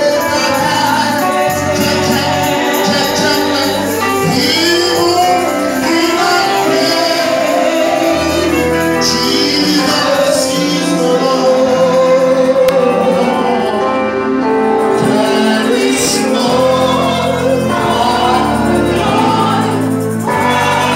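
Live gospel praise music: singers and the congregation singing over a band with a steady bass line.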